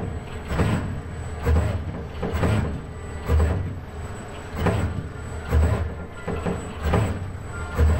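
ABB industrial robot arm moving its painting brush in short repeated moves, its joint motors and gearboxes giving a loud mechanical surge with a low thump roughly once a second, over a faint steady high whine.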